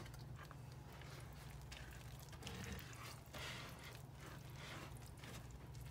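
Faint, soft wet squishing of thick muffin batter being folded and stirred with a silicone spatula in a glass bowl, over a steady low hum.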